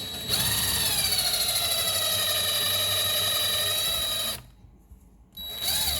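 Power drill boring a knob hole through a cabinet door: the motor whines steadily for about four seconds, stops, and runs again briefly near the end.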